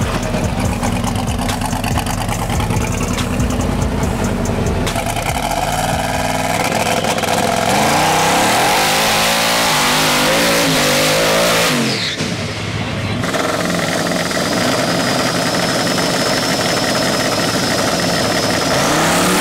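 Twin-turbo LS V8 in a Jeep Wrangler drag car rumbling steadily, then revving up and down through a water-box burnout with the tyres spinning. After a short dip about twelve seconds in, it holds a steady higher note with a thin high whistle over it, and starts to rise sharply at the very end.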